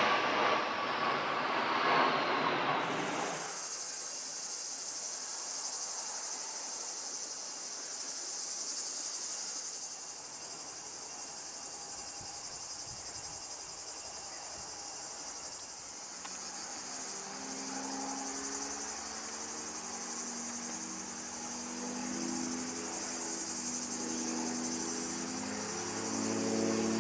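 Steady high-pitched chorus of cicadas. A loud rushing noise dies away about three seconds in, and from about halfway on, music with held notes rises beneath the insects.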